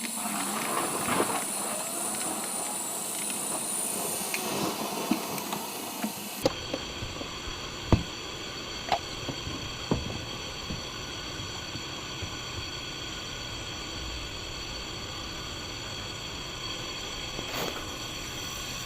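Steady hiss with a few scattered sharp clicks and knocks from work on the car's fuel system. The background sound changes abruptly about six seconds in.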